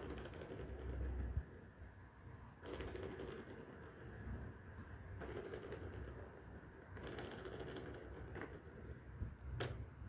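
Plastic balls rolling and rattling around the tracks of a plastic cat tower toy, in several short spells of clatter, with a couple of sharp clicks near the end.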